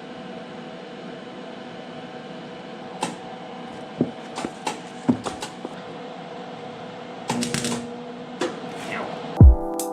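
A steady hum, with a handful of sharp clicks and knocks and a short clatter, like objects being handled in a workshop. Music with a beat starts near the end.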